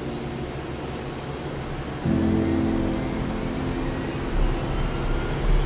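Jet engines spooling up, a slowly rising whine over a low rumble that builds in the second half, mixed under sustained music chords that change about two seconds in.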